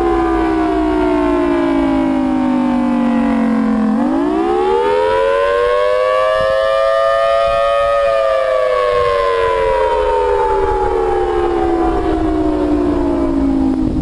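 Civil defence siren wailing. Its pitch falls for about four seconds, swoops back up over the next four, then slowly falls again.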